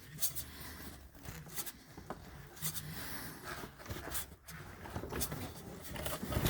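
Scattered light clicks and rustles of parts and tools being handled during an oil-filter change, over a faint steady low hum.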